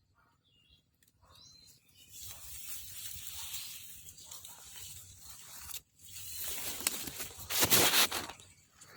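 Rustling, crackling noise coming and going, loudest near the end, with faint bird chirps in the first second or so.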